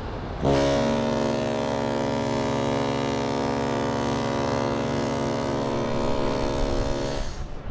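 Queen Mary 2's ship's horn sounding one long blast of about seven seconds: a deep, steady tone that starts and stops abruptly.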